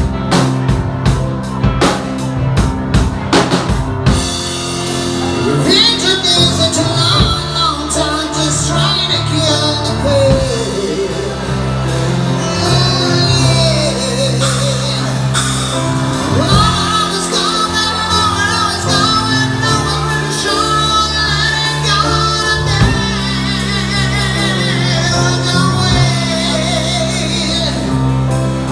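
A song with singing over instruments; drum hits open it, then sung lines over held notes.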